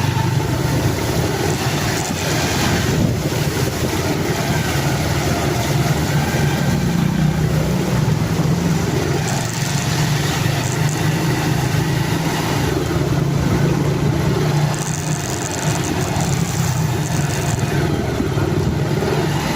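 A vehicle engine running steadily under a continuous rushing noise.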